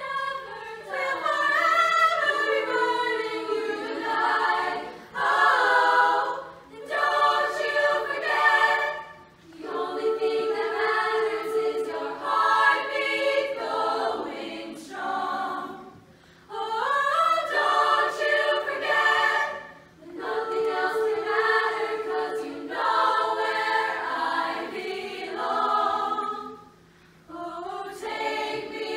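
A girls' choir singing, with phrases broken by brief pauses for breath.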